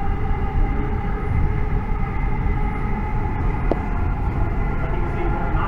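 Hyderabad Metro electric train (Hyundai Rotem multiple unit) running at speed, heard from inside the car: a steady rumble of wheels on rail with a constant whine over it.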